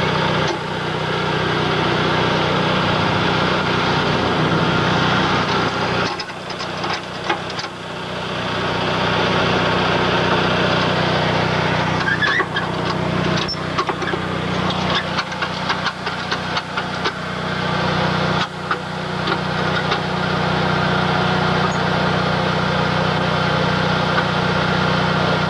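Vehicle engine running steadily, with a brief drop in level around six seconds in and a scatter of sharp knocks and rattles through the middle stretch.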